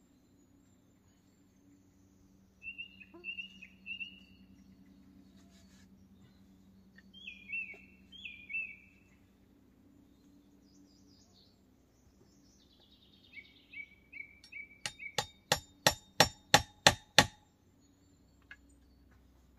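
Small birds calling in short chirps, a few with a downward slide, over a low steady hum. Near the end comes a quick run of about nine sharp knocks, coming faster and louder, and these knocks are the loudest sound.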